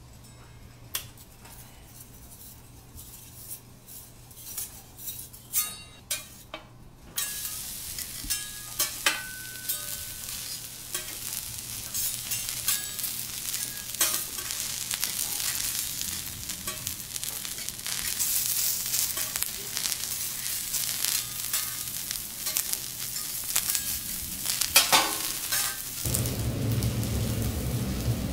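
Thick vegetable slices sizzling on a steel teppanyaki griddle, with clicks and scrapes of a metal spatula and fork on the steel. The sizzle sets in about a quarter of the way through and grows louder. Near the end a low rumbling noise comes in.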